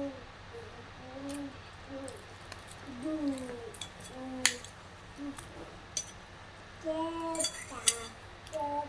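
Occasional sharp clinks of eating utensils against a plate, the loudest about halfway through and near the end. Between them come faint short vocal sounds that bend in pitch.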